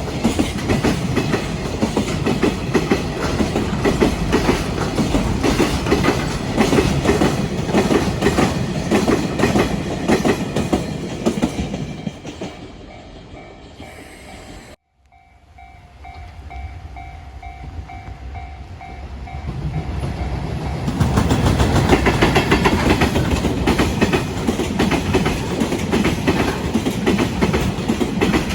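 Freight train wagons rolling past with a clickety-clack of wheels over rail joints, fading away about twelve seconds in. A level-crossing warning bell then rings in quick even pulses, cut off for an instant halfway through. Another train comes in loud about three quarters of the way through, its wheels again clattering over the joints.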